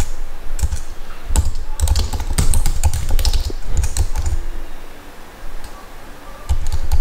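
Typing on a computer keyboard: irregular runs of keystroke clicks, easing off to a lull about five seconds in before a few more keys.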